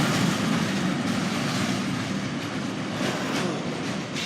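Freight train rolling past on the rails, with a steady rumble and a few wheel clicks over rail joints, slowly fading away.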